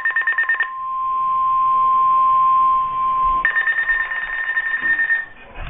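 NOAA Weather Radio alert signals. A buzzing, rapidly pulsing burst of digital SAME data tones gives way about a second in to the steady single-pitch 1050 Hz warning alarm tone, held for about three seconds. Then a second burst of data tones follows.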